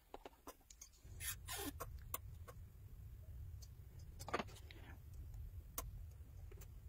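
Scattered light clicks and ticks of small tools and a fine cutting wire being handled, over a low steady hum that starts about a second in.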